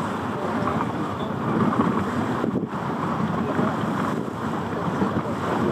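Wind buffeting the microphone aboard a cruise ship under way, over a steady rush of water.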